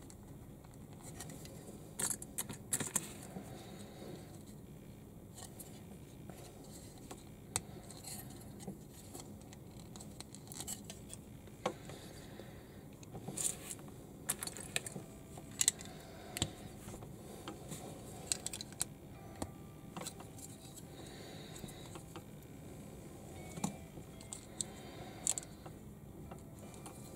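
Small plastic building bricks being handled and snapped together: irregular sharp clicks and light clatter, some in quick clusters, over a faint steady background hum.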